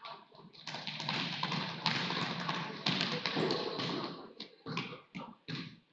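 Scattered taps and thumps on a hardwood gym floor: a basketball bouncing and players' footsteps, coming at an irregular pace.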